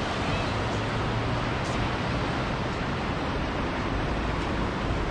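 Ocean surf washing over a rock shelf, with rain, heard as a steady, even rush of noise.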